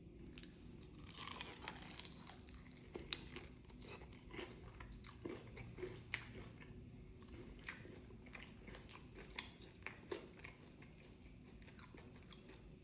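A person faintly biting into and chewing a fried chicken wing, with soft, irregular crunches and mouth clicks.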